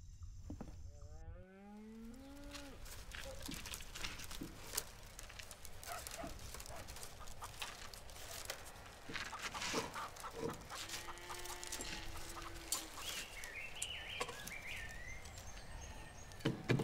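Farmyard animal calls: a rising call about a second and a half in, a steady lower call around eleven to thirteen seconds, and chicken clucks near the end. Underneath runs a scatter of light clicks and taps from bamboo strips being handled in basket weaving.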